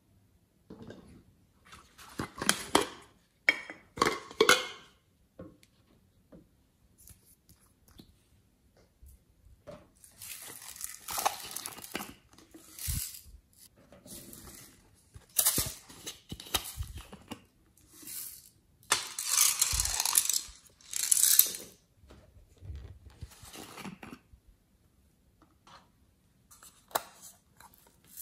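Close-up handling of slime-making materials: plastic bottles and containers picked up, tapped and shaken over a glass tray, in several bursts of crinkly rustling with small clicks in between.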